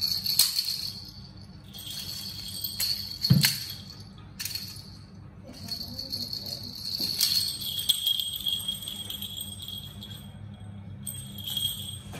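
A plastic baby rattle jingling in bursts as it is shaken and carried, with one sharp knock about three and a half seconds in.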